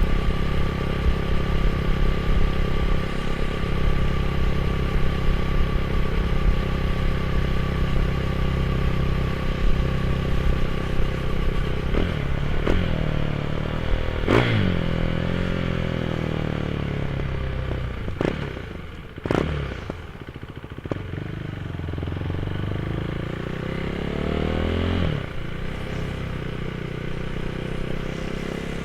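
Motorcycle with an aftermarket GPR exhaust idling steadily, then revved in several quick throttle blips from a little under halfway through, each falling back to idle, with a slower rev-and-drop near the end.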